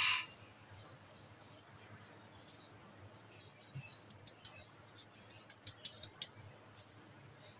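Flour being sifted through a round mesh sieve over a mixing bowl: a brief hiss at the very start, then faint rustling and a scatter of light taps and scratchy ticks as the sieve is shaken and tapped by hand, mostly in the second half.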